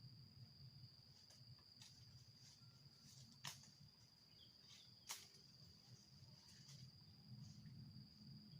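Near silence, with a faint, steady high insect trill running on, and two sharp clicks about three and a half and five seconds in.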